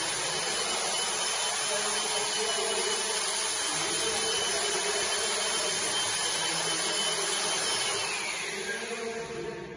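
Electric motor machine running steadily, a rushing noise with a thin high whine; about eight seconds in the whine falls in pitch and the noise fades as the motor winds down.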